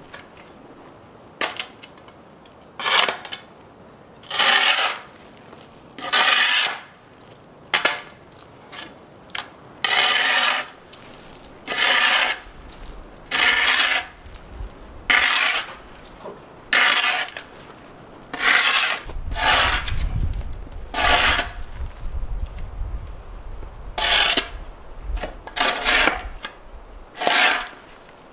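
Steel shovel blade scraping mud and dirt off a footer in repeated strokes, about one every second and a half.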